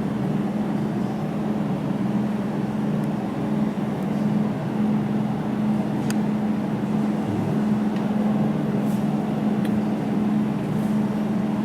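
Steady electrical hum of a jewelry laser welding machine running, with a few faint sharp clicks scattered through it.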